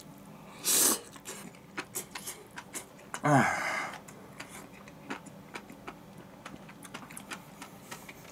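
Eating sounds: a short slurp as a chopstick-load of enoki mushrooms is sucked in about a second in, then chewing with many small wet mouth clicks. A little after three seconds comes a short throaty, breathy burst from the mouth.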